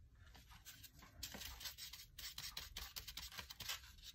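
Faint, irregular scratching and rubbing of a fan brush's bristles working thinned white fluid acrylic paint on a foam trash plate.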